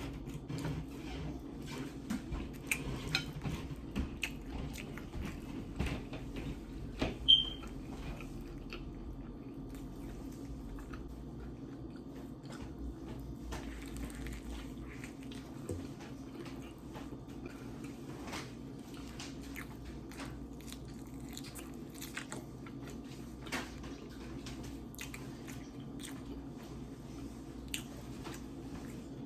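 A person chewing and biting food close to the microphone, with many short crunchy, wet clicks. One louder snap comes about seven seconds in.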